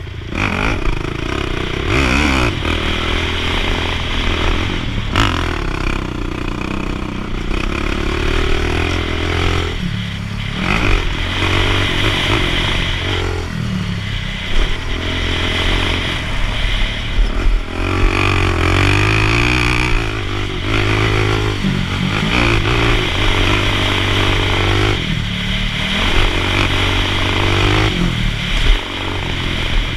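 Sport quad (ATV) engine under hard throttle, its pitch climbing and falling as the rider accelerates, with short dips every few seconds where the throttle is let off.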